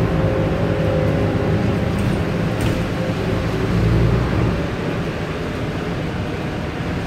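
Scania N230UD double-decker bus running on the road, heard from inside the upper deck: low engine hum with road noise. The engine note is strongest about four seconds in, then eases off, and there are a couple of faint rattles.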